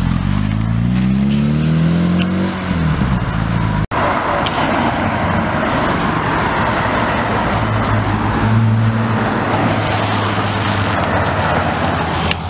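Car engine revving up as it pulls away, its note rising for the first couple of seconds. After a sudden cut about four seconds in, another car drives off, its engine note steady under a loud rushing noise.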